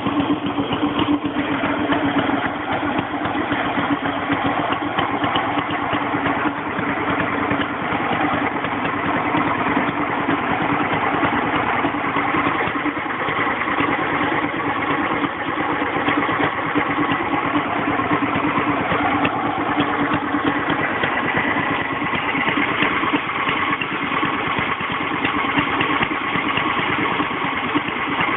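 Scott two-stroke stationary engine running steadily while belt-driving a dynamo.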